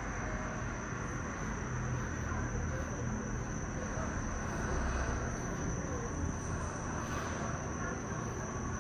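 Disney Skyliner gondola cabin in motion: a steady low rumble and hiss of the ride, with a thin, steady high-pitched whine over it.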